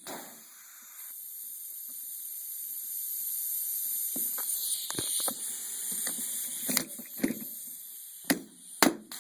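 Rivet gun being squeezed to set closed-end blind pop rivets: a series of sharp clicks and snaps in the second half, over a steady hiss.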